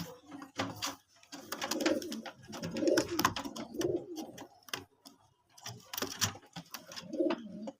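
Domestic pigeons cooing in several low, rolling phrases, with sharp clicks and rustles among them.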